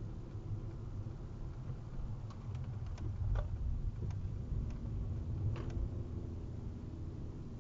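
Low road and engine rumble inside a car's cabin as it slows and turns left, with a handful of sharp, irregular clicks and creaks from the steering wheel during the turn.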